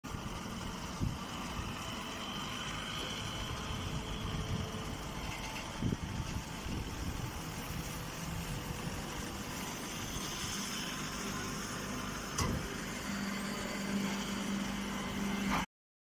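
Hydraulic grass baler running with a steady mechanical drone, broken by three short clunks and joined by a steady low hum near the end.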